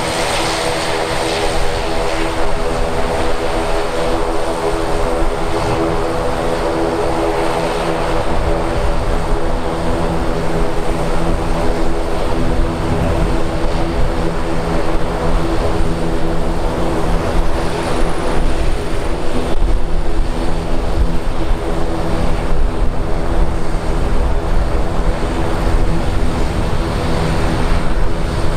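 Turboprop aircraft's propellers and engine running, a steady droning hum of several tones over a low rumble that grows slowly louder.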